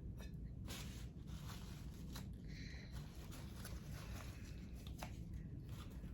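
Faint rustling and scraping with a few light clicks and knocks, from hands working paint and tools during acrylic pouring.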